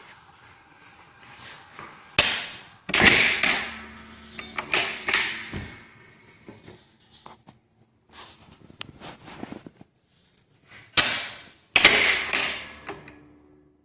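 Sharp knocks and clattering in two clusters, about two to three seconds in and again near the end, with lighter clicks and rattles between them.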